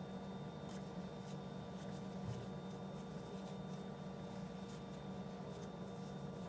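Quiet room tone under a steady low hum, with faint, light rustles and ticks of yarn being drawn through stitches by a metal crochet hook.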